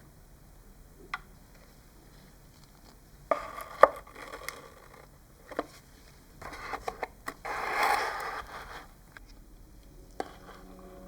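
Hands working small model parts on a bench: scattered sharp clicks and taps, with short scraping and rubbing noises, the longest about eight seconds in.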